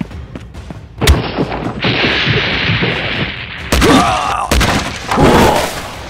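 Cartoon battle sound effects: a sharp boom about a second in, a loud hissing rush, then more heavy thuds mixed with growling, bending creature cries.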